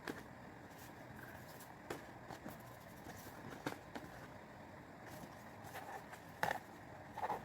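Faint handling sounds of album packaging: scattered light taps and rustles, with two louder ones near the end.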